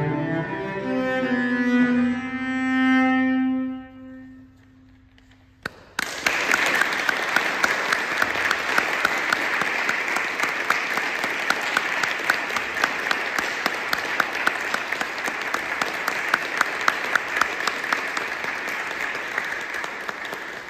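A cello's last bowed note, held for a couple of seconds and dying away, ending a solo cello prelude. After a brief hush, an audience applauds for the rest of the time.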